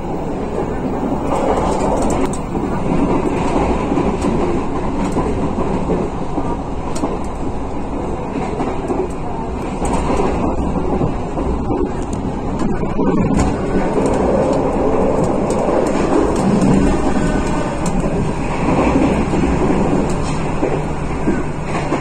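KA Sancaka passenger train running at speed, heard from inside the coach: a steady rumble of wheels on rails with occasional sharp clicks.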